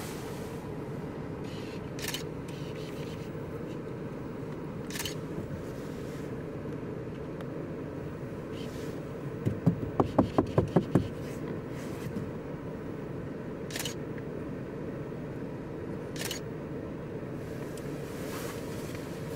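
Steady hum of an idling car, heard from inside the car. A few sharp clicks and, about halfway, a loud run of about seven quick pulses.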